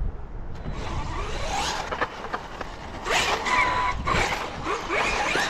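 Sensorless brushless motor (5687, 750 kV) of a Losi Super Baja Rey 2.0 1/6-scale RC truck on 8S, whining up and down in pitch again and again as the truck is throttled and braked.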